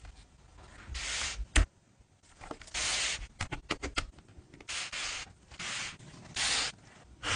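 Food being laid onto a flour tortilla on a wooden cutting board: a string of short soft rustles and light taps as pieces such as pickle slices and chopped onion are set down and scattered.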